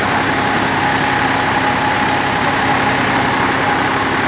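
Agri King tractor engine running steadily while driving a belt-driven air compressor, a loud even mechanical hum with a faint constant whine in it.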